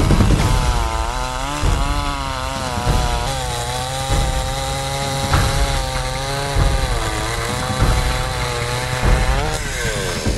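Sadko GCS-510E two-stroke chainsaw running at high revs. Its pitch dips and recovers several times, as when the chain bites into wood and the engine takes the load. The pitch falls away near the end as the throttle is released.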